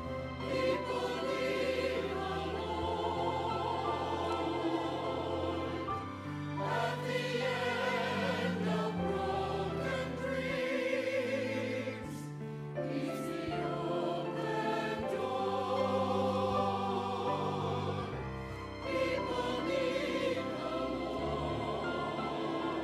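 Church choir singing with instrumental accompaniment under sustained low notes, in phrases with short breaks about every six seconds.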